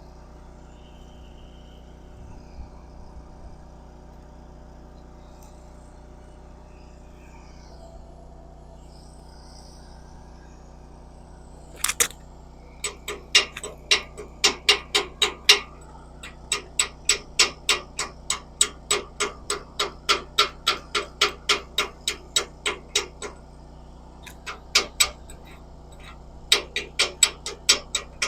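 A steady low hum, then from about twelve seconds in, runs of sharp, evenly spaced knocks, about two to three a second, with short breaks between the runs.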